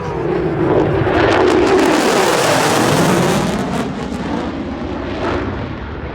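F-16 Fighting Falcon fighter jet making a fast pass. The jet noise swells, is loudest about one to three seconds in with a falling pitch as it goes by, then fades.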